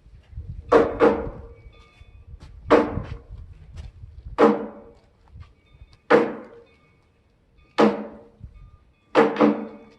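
A slow series of sharp struck knocks, each with a short resonant ring, several of them doubled in quick pairs, about one every one and a half to two seconds.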